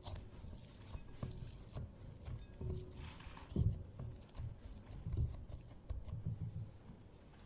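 Hands pressing and kneading soft scone dough in a glass mixing bowl: irregular soft thuds and squishes, with a few light clicks.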